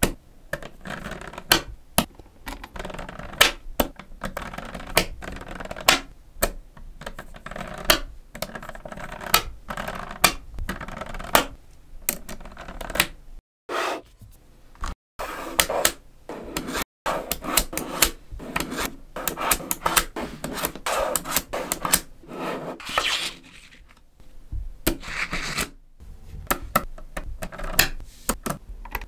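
Small neodymium magnet balls clicking sharply as strips of them are snapped onto a block of magnet balls, with rattling and rubbing of the balls between the clicks. The sound cuts out briefly a few times.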